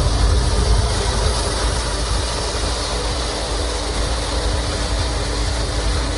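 Hair dryer running steadily: a loud, even rush of air with a steady motor hum under it.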